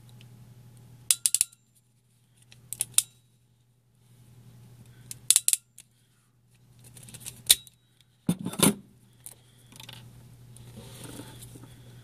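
Ratcheting RJ45 cable crimper cutting and stripping a Cat-5 network cable: about six short clusters of sharp clicks and snips from the tool's ratchet and blades, the loudest near eight and a half seconds. A faint steady low hum lies underneath.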